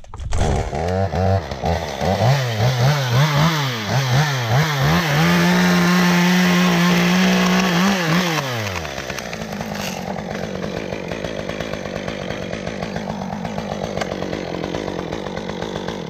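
Stihl top-handle two-stroke chainsaw revved up and down several times, then held at high revs for about three seconds. It drops back to a steady idle for the second half.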